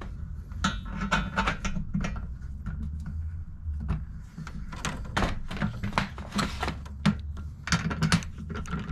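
Irregular knocks and clinks of metal hardware and tools being handled, in clusters, over a steady low hum.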